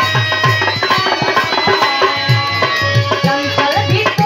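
Dholak drum beating a steady rhythm, about three strokes a second, under a harmonium playing a held melody: an instrumental passage of a live Indian folk song.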